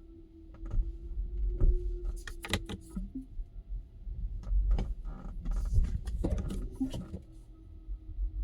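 2021 Tesla Model 3 driving over small bumps: low road rumble with a steady hum, broken by sharp metallic knocks from the front left wheel, in two clusters. The knock persists despite all-new front left suspension.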